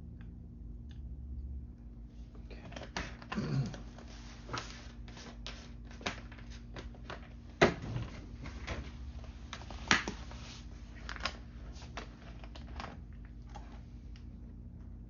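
Irregular light clicks and taps of small items being handled on a workbench, with sharper knocks about three and a half, seven and a half and ten seconds in, over a steady low hum.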